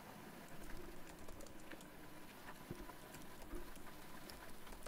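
Faint computer keyboard typing: a few scattered, irregular keystrokes.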